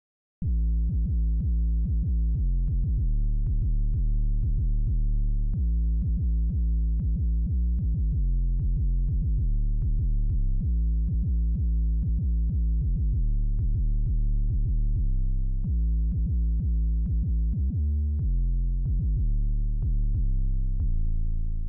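Arturia Prophet-5 V software synthesizer playing an 808-style bass preset: a long run of deep bass notes, each bending down in pitch on its attack. It starts about half a second in and fades out near the end.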